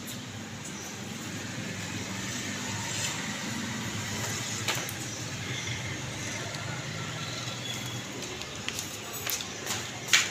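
A steady low background rumble with a few light knocks and rustles of hands handling mangoes, the newspaper lining and a wooden crate. The sharpest knock comes near the end.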